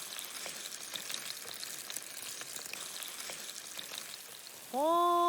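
Mackerel frying in oil in a pan over a wood fire: a steady sizzle with small scattered pops. Near the end a voice holds one drawn-out note.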